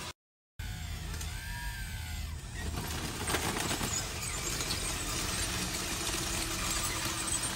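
Small electric motors and gearboxes of RC construction machines running with a mechanical whine and grind. The whine rises and falls in pitch briefly about a second and a half in, after a moment of silence at the very start.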